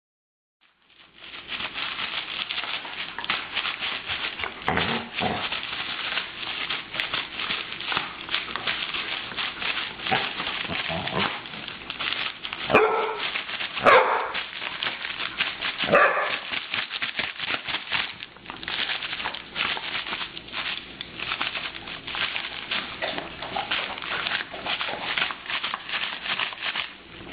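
Dog barking repeatedly at a hand-held bag puppet, the loudest barks near the middle.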